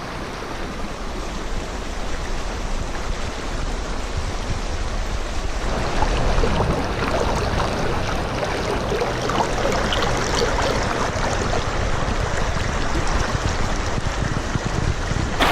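Small spring-fed creek running, a steady rush of water that gets louder about six seconds in.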